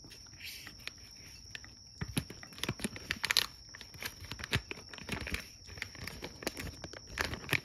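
A domestic cat eating from a bowl of dry kibble mixed with wet food: irregular crunching and chewing, busier from about two seconds in.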